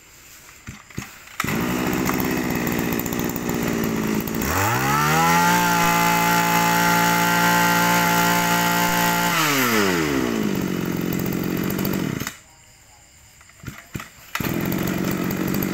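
Komatsu Zenoah 23 cc two-stroke brush cutter engine catching after a recoil pull about a second and a half in and idling, then throttled up smoothly to a steady high speed for about five seconds and let back down to idle. It stops about twelve seconds in and is pulled and started again about two seconds later, idling.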